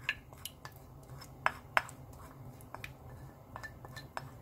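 A spoon clinking and scraping against a ceramic bowl as soybean paste (doenjang) is scraped out into a pot. It makes a series of irregular light clinks, the two loudest about a second and a half in.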